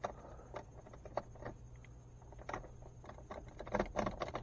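Small irregular clicks and rattles of a key and its fob being jiggled at the lock tumbler on a Chevrolet Traverse's steering column. The clicks come more often toward the end. The key's tip is broken off, so it will not go into the tumbler.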